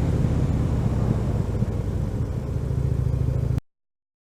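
Harley-Davidson Dyna Switchback's V-twin engine running, heard with a deep low rumble, until the sound cuts off abruptly about three and a half seconds in.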